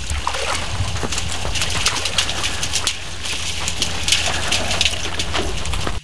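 Wild Bactrian camels drinking from a shallow stream: irregular slurping and splashing of water at their mouths, many short wet sounds in quick succession.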